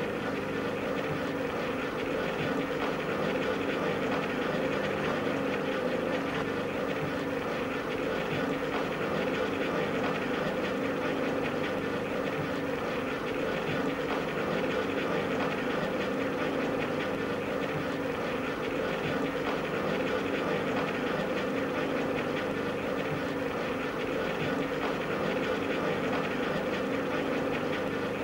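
Homebuilt gyroscopic 'anti-gravity' machine running at speed, its weighted arms spinning on a stand: a steady mechanical whir with a fast, even rattle.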